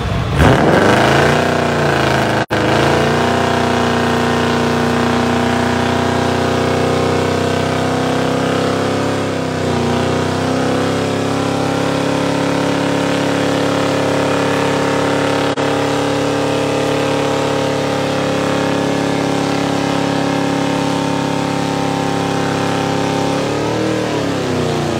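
A car engine held at high revs through a long tyre-smoking burnout. It revs up sharply at the start, sags briefly about ten seconds in, and drops back near the end.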